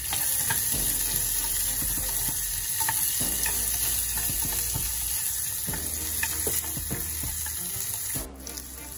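Chopped red onion sizzling in hot olive oil with mustard and cumin seeds in a small saucepan, stirred with a wooden spoon that scrapes and taps the pan. This is the tempering frying as the onion goes in to brown. The sizzle drops off abruptly near the end.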